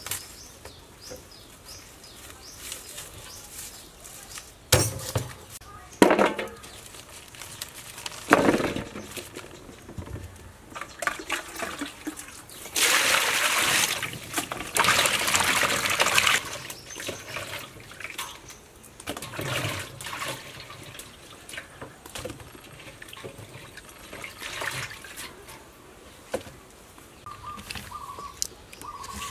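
Pot of water boiling hard, with lemongrass, limes and chillies in it: a loud steady bubbling for about three seconds midway. Before it come a few short knocks and clatters of kitchen work.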